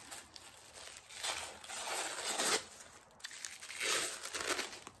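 Wrapping being crinkled and peeled off a beeswax candle by hand, in two rustling spells: one about a second in, a shorter one near the end.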